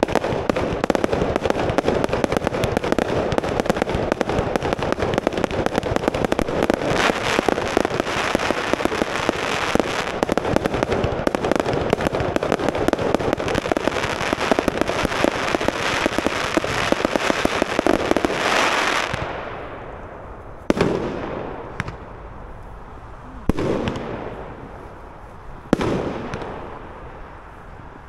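Aerial fireworks display: a dense, unbroken barrage of shell bursts and crackling for about nineteen seconds, then single sharp bangs every two to three seconds, each trailing off.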